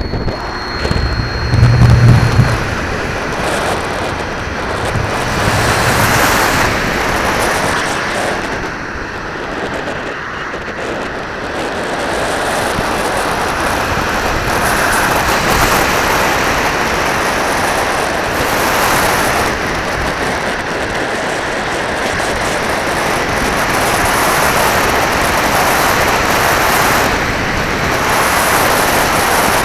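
Wind rushing and buffeting over the microphone of a camera mounted on a flying radio-controlled glider, a steady loud noise that swells and eases, with a few low bumps about two seconds in.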